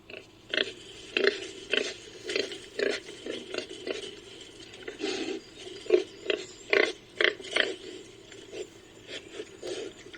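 Warthog grunts used as a creature sound effect: a run of short grunts, about two a second, some louder than others.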